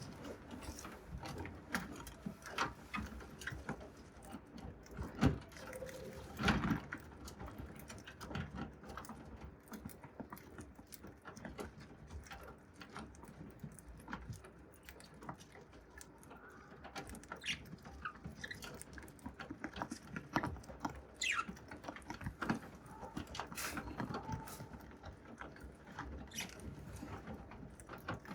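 Budgerigar pecking at and cracking grains with its beak, a steady run of small irregular clicks and crunches, a few louder ones about five to seven seconds in.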